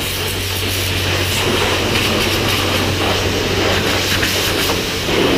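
High-pressure jet-wash lance spraying water onto a motorcycle's bodywork: a steady, even hiss of the spray over the constant low hum of the wash pump.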